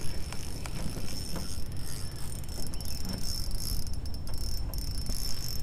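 Steady high-pitched insect chorus with one thin tone held through most of it, over a low rumble and a few light ticks.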